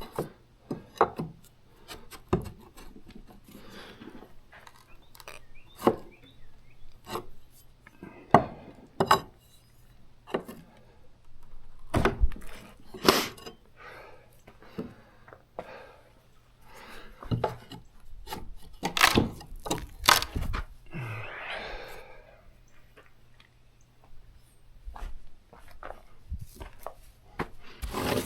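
Irregular knocks and scrapes of work with wood and tools: timbers or boards being handled, set down and slid. Sharp single knocks come every second or two, with a longer scrape about 21 seconds in.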